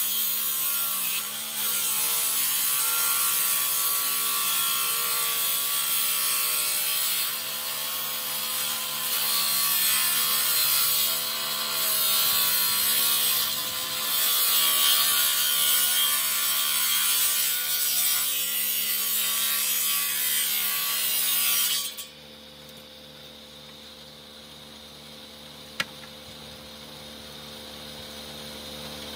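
Table saw ripping a long plank lengthwise: a loud, steady cutting noise over a motor hum for about 22 seconds. The cut then ends and the saw keeps running with a much quieter steady hum, with a single click near the end.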